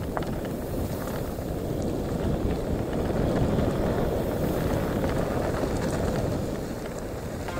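Wind buffeting the microphone of a mountain biker's action camera, a steady low rumbling rush.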